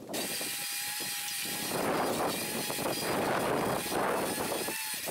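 Recovery truck's winch running under load, dragging a car shell up the bed: a thin whine at first, then a louder, rougher grinding from about two seconds in.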